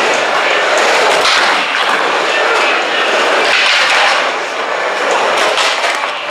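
Skateboard wheels rolling back and forth across an indoor mini ramp, a loud, steady rolling noise.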